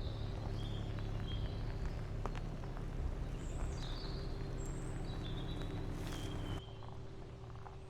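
Birds chirping in short high calls over a steady low hum that drops away suddenly near the end, with scattered light clicks.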